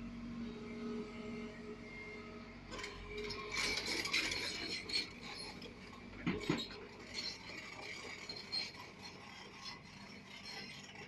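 JCB JS 140 hydraulic excavator at work: a low steady engine hum, then from about three seconds in a busy run of metallic clanking and scraping, with one loud knock around the middle.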